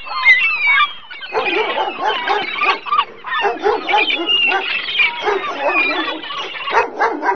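A clamour of overlapping animal calls, with dogs barking among them.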